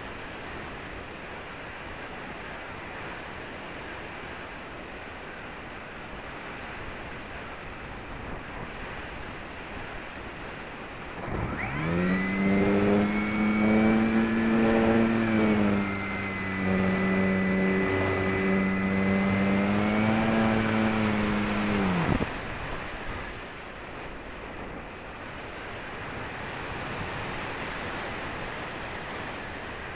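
Wind rushing over the glider's wing-mounted keychain camera while it glides with the motor off. About 11 s in, the HobbyKing Walrus's electric motor and propeller spin up to a steady, loud whine. The pitch dips slightly partway through, then the motor cuts off suddenly about 22 s in, leaving the wind rush again.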